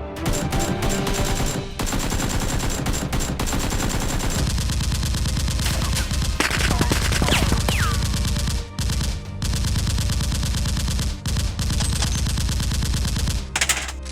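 Rapid automatic gunfire in long, nearly continuous bursts of shots, breaking off briefly a few times in the second half.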